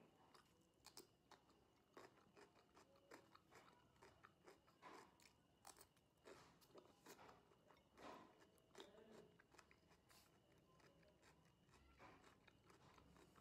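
Faint crunching of crisp cucumber slices being bitten and chewed close to the microphone, in irregular bursts of crunches.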